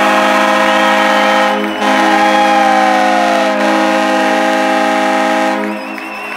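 Hockey arena goal horn sounding a long, loud, steady multi-note chord that signals a home-team goal, with a brief break about two seconds in; it stops near the end.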